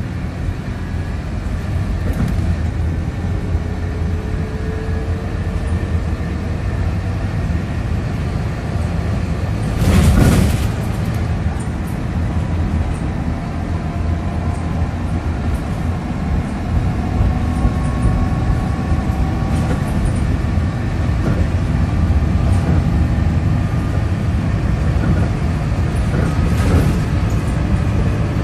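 Scania K230UB bus with ZF automatic gearbox on the move, heard from inside the saloon: a steady low engine drone with road noise and faint whines that shift in pitch. A loud rushing burst comes about ten seconds in, and a smaller one near the end.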